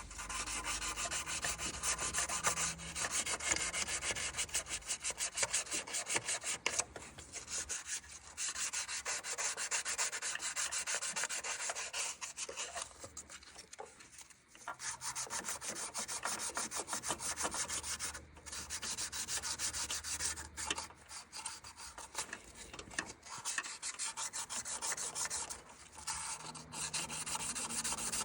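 Sandpaper being rubbed rapidly back and forth by hand over an engine part to clean the surface: a fast scratchy rasping in long runs with a few short pauses.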